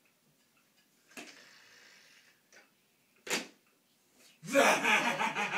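A child's plastic wheeled toy being handled on a carpet: rustling, a click and a sharp knock. Near the end a loud pitched sound starts, wavering up and down about three times a second.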